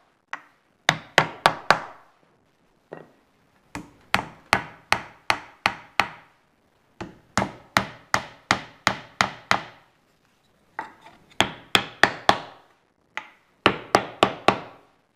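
Wooden mallet tapping a wooden pad held over tapered wooden pins, driving them through a mortise-and-tenon joint. Sharp wooden taps come in runs of four to seven, about three a second, with short pauses between the runs.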